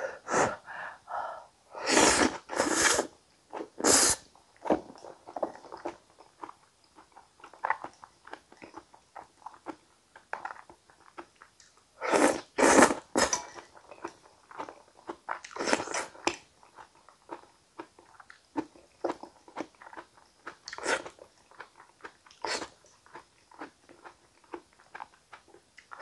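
A person chewing a mouthful of potato-tomato gratin with bell pepper close to the microphone: irregular wet chewing and small crunches, with a few louder crunching bites.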